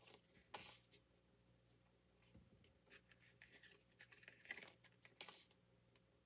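Faint rustling and sliding of stiff cardboard standees shuffled in the hands: a handful of brief, soft scrapes spread over a few seconds.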